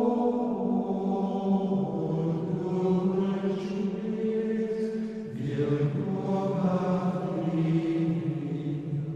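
Background music of chanting voices holding long notes, the pitch shifting to a new chord about two seconds in and again about five seconds in.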